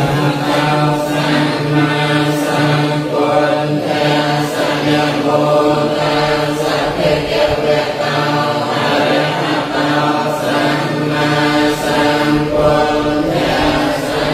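A group of voices chanting together in unison, Buddhist prayer recitation held on one steady note and broken into short syllables.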